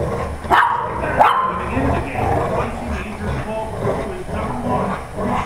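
Dogs growling steadily as they play tug-of-war with a rope toy, with two sharp barks about half a second and a second in.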